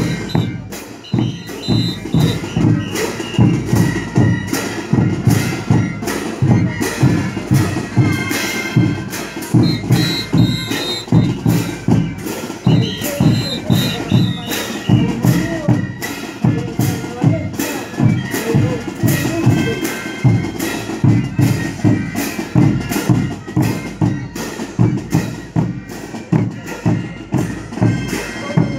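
Brass band with bass drums and snare drums playing a lively dance tune, the drums keeping a steady beat under the sustained brass melody.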